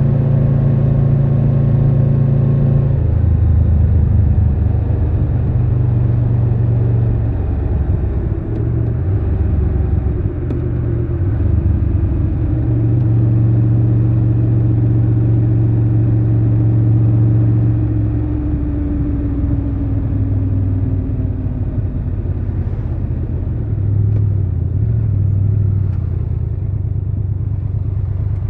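Triumph Tiger 1200 Rally Pro's three-cylinder engine running as the bike rides along, heard raw from the rider's position. The engine note changes pitch several times, and a long, slowly falling tone sits above it for about ten seconds in the middle.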